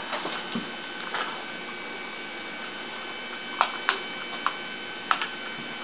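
Scattered light clicks and taps from handling the plastic parts of a Traxxas Mini E-Revo RC truck, the sharpest a pair about three and a half seconds in, over a steady electrical hum.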